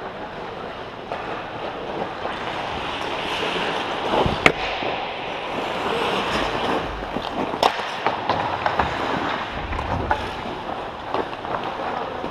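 Ice hockey skates scraping and carving on the ice, with sharp clacks of sticks and puck, the loudest about four and a half seconds in and another near eight seconds.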